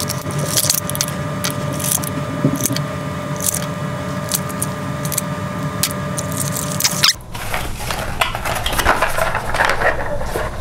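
Hands handling a cardboard box of hookup wire spools: rustling and scraping of the cardboard with light clicks and taps of the wire and spools. The sound breaks off suddenly for a moment about seven seconds in, then the rustling goes on.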